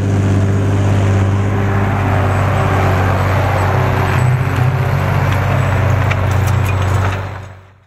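Zetor Crystal 12045 tractor's six-cylinder diesel engine running steadily under load while pulling a cultivator through the soil, fading out near the end.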